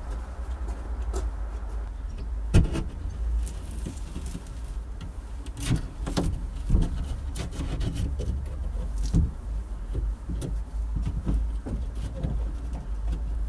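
A cut-out piece of plasterboard being worked loose and pulled from a stud wall by hand: scraping and crumbling with several sharp knocks, the loudest about two and a half seconds in, over a steady low rumble.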